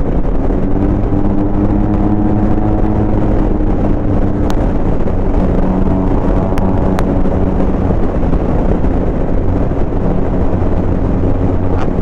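Motorcycle engine running at a steady cruising pitch under heavy wind and road noise on the microphone, with a few faint ticks.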